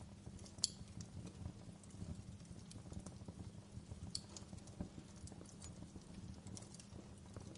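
Wood fire crackling: a steady low rumble of flames with dense small crackles and scattered sharp pops, the loudest pop about half a second in and another around four seconds in.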